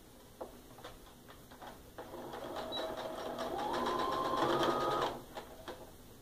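Sewing machine stitching a seam on quilt pieces: a few light clicks, then the machine runs for about three seconds, rising in pitch as it speeds up, and stops abruptly.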